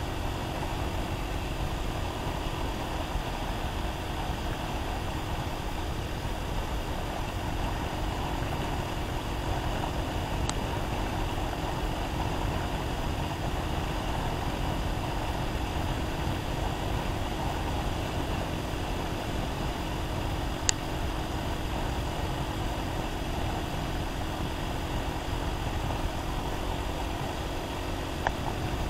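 Enduro motorcycle engine running steadily at cruising speed, heard from the bike with wind rumble on the microphone. Its engine note holds even throughout, and there are a few brief faint clicks at about ten seconds, twenty seconds and near the end.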